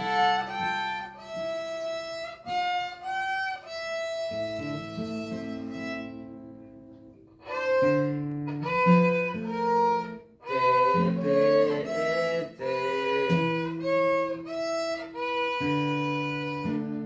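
A child's violin playing a simple melody in held bowed notes, accompanied by acoustic guitar chords. The playing fades out to a short break about seven seconds in, then resumes.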